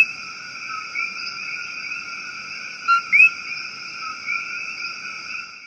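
A dense chorus of coquí frogs, the steady massed calling of Puerto Rico's common tree frog. Loud individual two-note "co-kee" calls, a short low note then a rising higher one, stand out near the start and about three seconds in. The chorus fades out at the very end.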